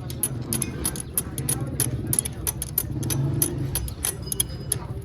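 Motorcycle engine idling with a rapid, uneven metallic ticking knock over a steady low hum, the kind of knock that can come from a worn cam gear.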